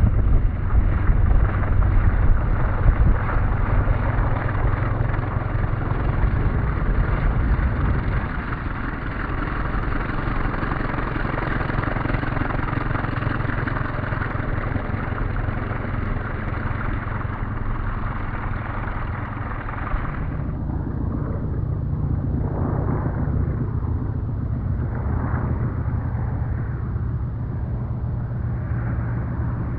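The radial engine of a giant-scale radio-controlled biplane runs with a steady low drone, loudest over the first several seconds as it powers along the runway. About twenty seconds in, the sound cuts to the same engine heard in flight.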